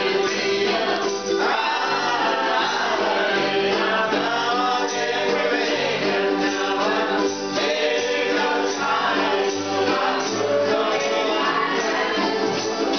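Group of ukuleles, a banjo ukulele and an acoustic guitar strummed together, with the players singing along as a group.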